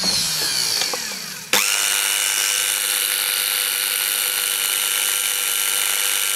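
Blender's brushed universal motor coasting down for about a second and a half, then switched on again and spinning up at once to a steady high whine. Its shorted field winding loads it like a brake.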